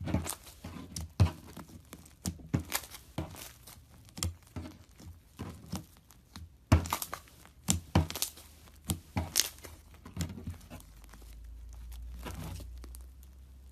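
Iceberg slime's dried, hardened top layer crackling and crinkling as it is pressed, in many irregular sharp crackles. A low hum swells near the end.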